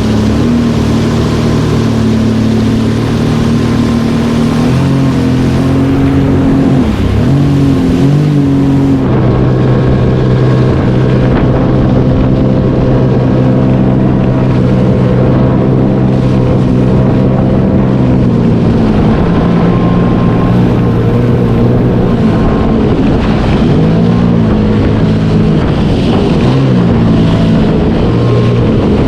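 Sea-Doo personal watercraft engine running under way, its pitch dipping and rising a few times as the throttle changes and holding steady in the middle stretch.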